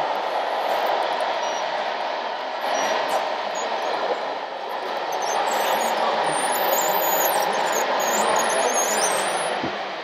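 Radio-controlled model construction machines, a crawler dozer and a wheel loader among them, running in a large hall: a steady whirring din with thin, high whines that waver in pitch.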